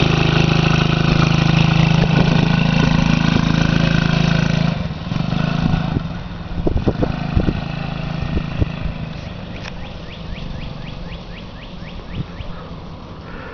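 Small youth ATV's engine running close by, then fading after about five seconds as the quad drives away.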